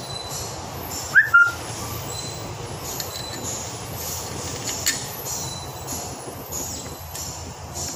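Parts of a car starter motor being fitted together by hand over steady background noise: two short, high squeaks about a second in are the loudest sounds, and a light metallic click comes near the middle.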